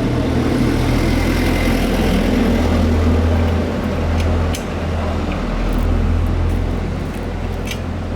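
Steady low machine hum, with a few light clicks and taps over it from about halfway through.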